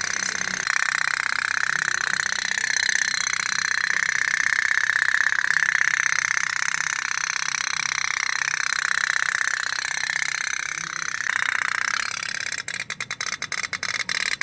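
Toy pop-pop steam boat's candle-heated engine putt-putting in a fast, even rattle. Near the end the popping breaks up into separate, slower pops.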